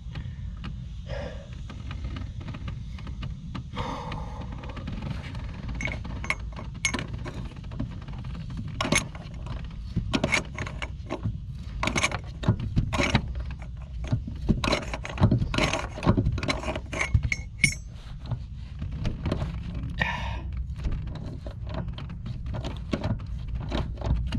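Irregular metallic clicks and clinks of a ratchet and a loosened door-hinge bolt being worked by hand. They come thick and fast through the middle of the stretch and thin out near the end, over a steady low rumble.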